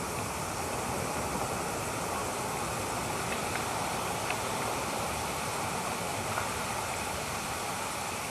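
Steady rushing noise on the eagle nest camera's microphone, with a few faint ticks about three to four seconds in.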